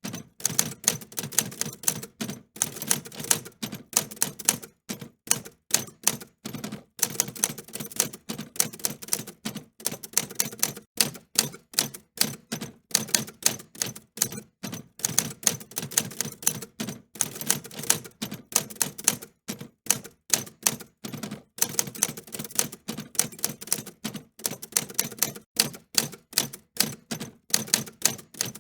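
Typewriter keys being struck in fast, irregular runs of sharp clicks, with brief pauses between bursts.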